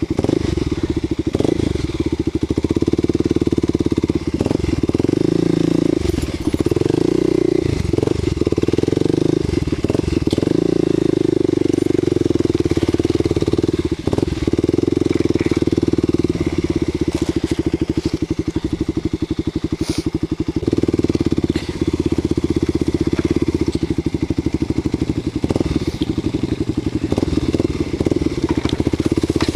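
Kawasaki KLX250 dual-sport motorcycle's single-cylinder engine running at low trail speed, the throttle opening and easing off several times. Scattered clicks and knocks come from the bike working over a rutted, muddy trail.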